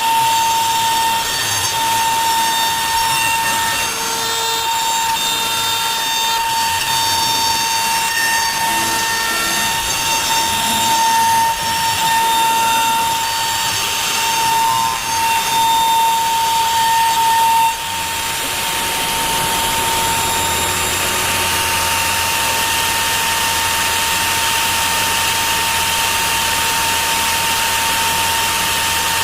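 CNC router spindle running with a steady high whine while the bit cuts wood in a rough clearance pass, with an uneven chattering cutting noise. About 18 seconds in, the cutting noise turns into a smoother, steady hiss with a low hum beneath the whine.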